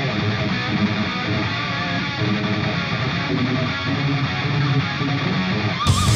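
Rock intro music with strummed electric guitar. Just before the end the mix changes and a wobbling tone joins in.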